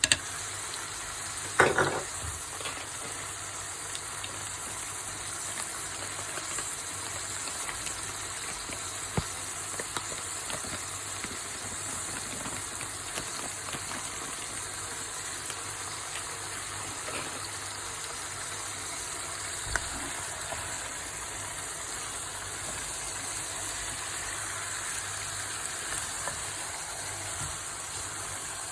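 Chicken frying in a pan, with a steady sizzle. About two seconds in there is a loud metallic clatter, and a few faint knocks follow, such as a utensil against the pan.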